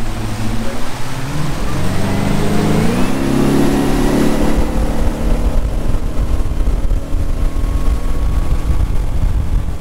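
Boat's 8.2-litre MerCruiser V8 sterndrive engine accelerating, its pitch rising for about two seconds and then holding steady at speed, over the rush of wind and churning wake.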